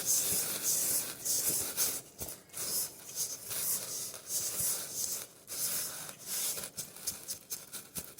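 Utensil stirring freshly milled wheat flour into the wet ingredients in a mixing bowl: irregular rubbing, scraping strokes of the shaggy, dry dough against the bowl.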